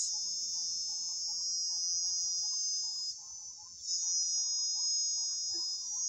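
A steady, high-pitched chorus of trilling insects, a few overlapping tones together. It fades for under a second a little past halfway.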